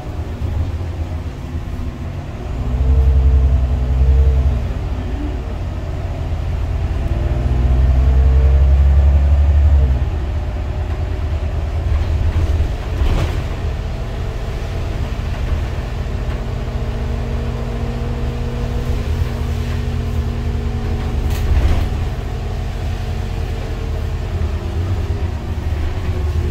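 Interior sound of an Irisbus Citelis city bus on the move, its Iveco Cursor 8 six-cylinder diesel and Voith automatic gearbox. The engine rumble swells twice under acceleration in the first ten seconds, then settles into a steady run. Two brief knocks come later.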